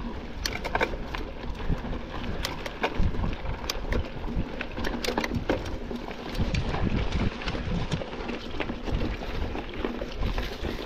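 Mountain bike rattling over rough trail, with irregular clicks and knocks over steady low wind noise on the microphone.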